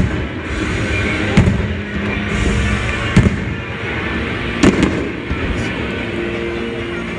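Fireworks bursting in the air, with sharp bangs about a second and a half in, a quick pair a little after three seconds, and another near five seconds, heard over music.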